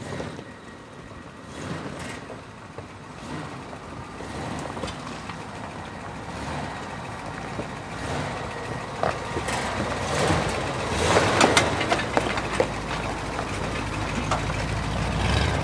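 1977 Jeep J10 pickup driving slowly over a rocky dirt track and passing close by: the engine running at low speed with the tyres crunching and popping over loose stones. It grows louder as the truck nears, the crunching strongest just past halfway and the low engine sound strongest near the end.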